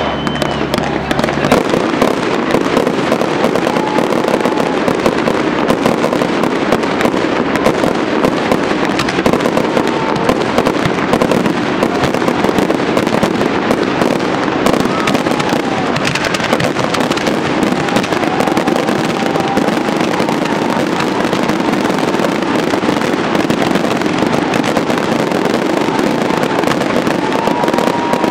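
Aerial fireworks going off in a dense, continuous barrage of crackling and popping bursts.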